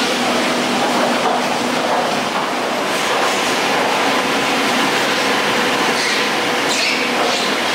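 Garaventa detachable chairlift machinery running: a steady mechanical rumble with clatter and a faint steady hum.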